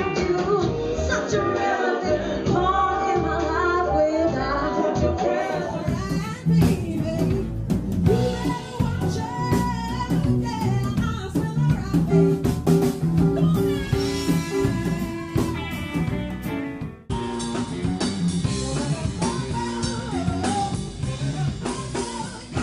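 Live band music: a woman singing lead over electric guitar and drum kit. The recording cuts abruptly to a different performance about five and a half seconds in and again about 17 seconds in.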